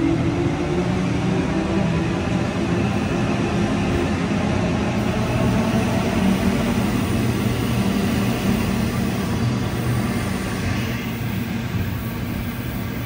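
Sydney Trains double-deck electric train moving along the platform: a steady electric hum with low tones over the rumble of the wheels.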